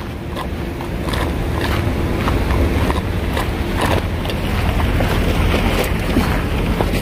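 Footsteps scraping on a gravel car park, a short scrape about every half second, over a steady low rumble of wind on the phone's microphone.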